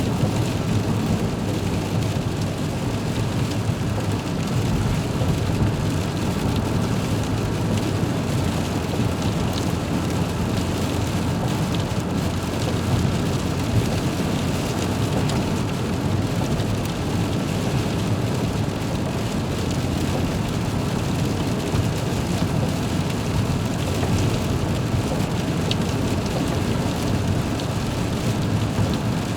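Heavy rain drumming steadily on a car's windshield, with a deep low rumble under the dense patter of drops.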